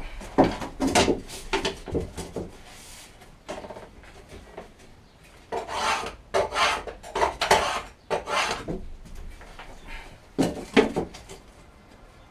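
A hand tool rasping and scraping at wood, in three bouts of quick strokes with short pauses between.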